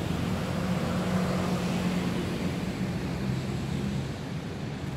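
A motor engine running steadily with a low hum, easing off slightly about four seconds in.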